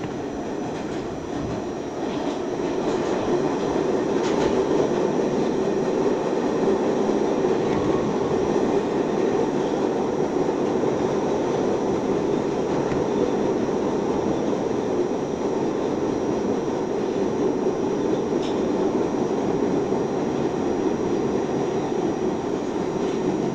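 R68A subway train running at speed, heard from inside the car: a steady rumble of wheels on rail and motors, growing louder a couple of seconds in, then holding steady.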